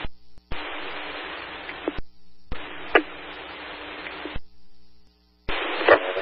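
Scanner radio static: open-channel hiss from keyed transmissions carrying no voice, broken three times by short silences as the squelch closes, with sharp clicks as the channel keys on and off.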